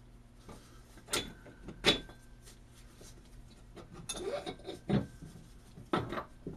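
Steel differential gears and centre-stack parts being handled and set down on a wooden workbench: a series of irregular knocks and clinks, the first two ringing on briefly like struck metal.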